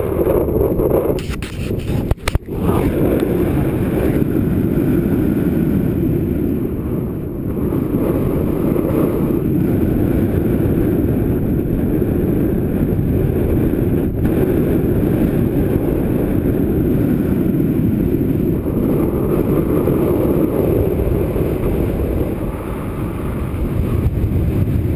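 Strong mountain wind buffeting the camera microphone, a steady low rumble, with a few knocks from the camera being handled about two seconds in.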